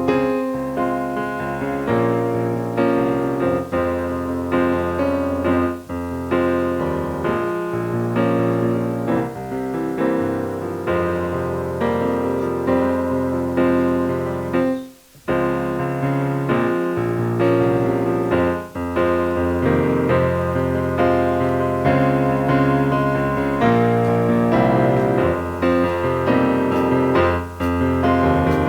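Piano music playing notes and chords, with a brief pause about halfway through.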